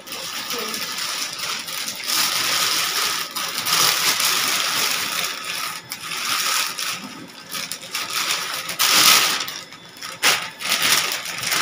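Plastic packaging bag crinkling and rustling as it is pulled off a flat-screen TV, in several bursts with short pauses.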